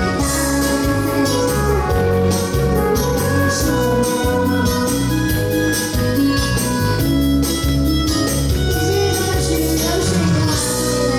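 Music: a song with steady bass notes and held chords.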